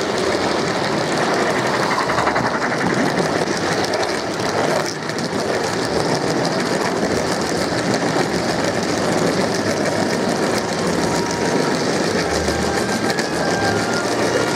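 Gauge 1 model train's metal wheels rolling along the garden-railway track. A steady rattling run with fast, fine clicking is picked up close by a camera riding on the train.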